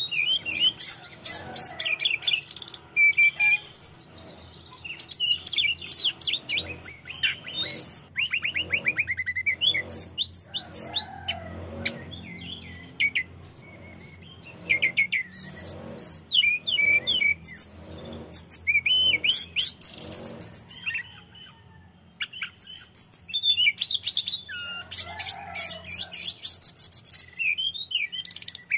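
Hill blue flycatcher singing a loud, varied song of rapid chirps, whistled notes and short trills, with a brief pause a little past three quarters of the way through.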